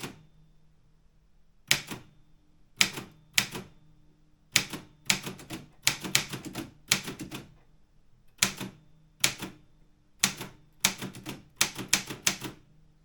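Optima Elite 3 manual typewriter being typed on: sharp type-bar strikes at an uneven pace, some single and some in quick runs of several keys, with pauses of up to a second between groups.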